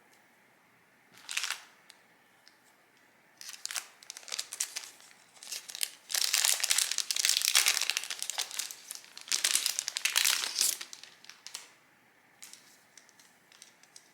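Paper or plastic packaging crinkling and rustling as it is handled, in bursts, with the longest and loudest stretch in the middle, then a few light ticks near the end.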